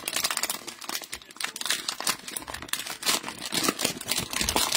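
Cellophane wrapper of a trading-card cello pack being torn open and crinkled by hand, with a dense, continuous crackle.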